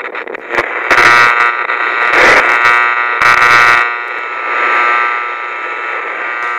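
A loud, steady electronic buzzing tone with several short bursts of hiss over it in the first four seconds, then growing quieter and fading away near the end.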